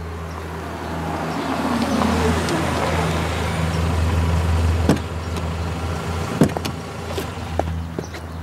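A BMW saloon car driving slowly up and pulling to a stop, its engine a steady low hum under tyre noise that grows louder until about five seconds in. A sharp click as it stops, then a few short clicks and knocks from the car's door.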